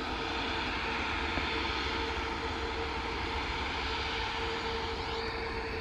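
Jet engines of an Airbus A350 airliner running steadily as it rolls along the runway: an even rush with a steady hum and whine.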